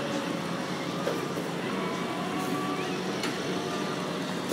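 Garden pulling tractor's engine idling steadily at the start line while it is hooked to the weight sled.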